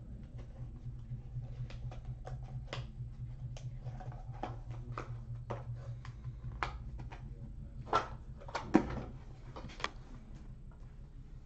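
Irregular light clicks of typing on a computer keyboard over a steady low electrical hum, with a couple of louder knocks about eight and nine seconds in.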